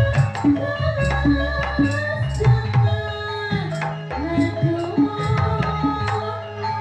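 Dolalak music: hand-drum strokes, some bending in pitch, played over a held melody and a bass line.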